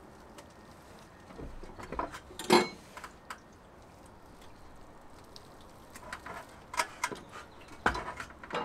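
Scattered metal clanks and knocks as a motorcycle on tyre warmers is rolled down an aluminium loading ramp out of a van, the loudest about two and a half seconds in and a few more near the end. The engine is not running.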